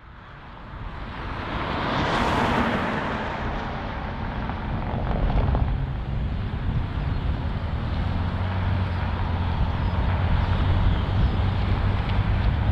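Four turbofan engines of a C-17 Globemaster III taxiing: a steady jet rumble and hiss with a low hum underneath. It fades in over the first two seconds and swells briefly with a brighter hiss about two seconds in.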